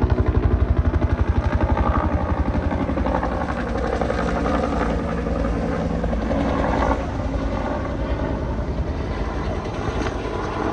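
A helicopter's rotor beating in a fast, even rhythm over its engine noise. The beat is sharpest in the first few seconds and then blurs into a steadier rumble.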